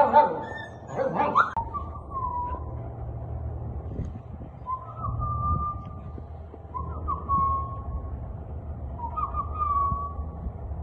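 Husky puppy whining. Two loud short cries come at the start, then a thin high whine about a second long, repeated four times, two to three seconds apart.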